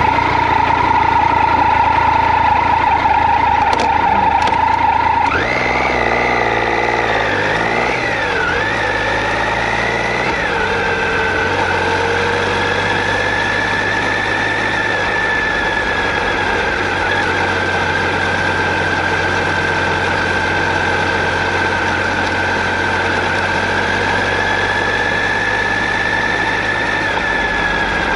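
Triumph Tiger 800 XC's three-cylinder engine running as the motorcycle is ridden: steady at first, the revs rise about five seconds in and go up and down for a few seconds, then hold steady while cruising.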